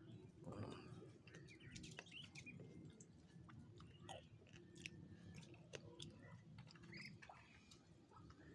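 Faint chewing of a fresh grape, with scattered small wet clicks as it is bitten and chewed. Birds chirp faintly in the background.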